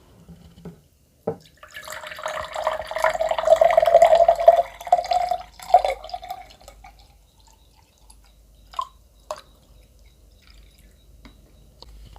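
Liquid being poured into a container for about four seconds, with a steady filling tone and fizzy crackle, followed by a few small clicks.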